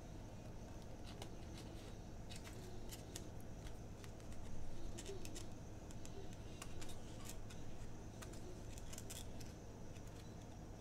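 Scissors trimming a small extra piece off a paper planner header, heard as a scatter of light, irregular snips and clicks over a steady low hum.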